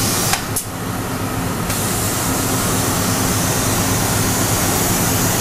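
Steady industrial machine hum with a broad hiss, the constant background noise of a factory floor, with a short click about half a second in.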